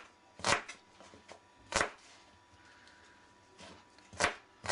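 Kitchen knife chopping fresh onions into large pieces on a plastic cutting board: three sharp chops of the blade on the board, well over a second apart, with a few lighter taps between.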